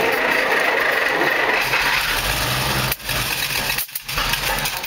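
Engine starting and running unevenly: it catches at once, runs loud, dips sharply about three seconds in, nearly stops just before four seconds, then picks up again. The owners suspect a stuck needle and seat in the carburetor float.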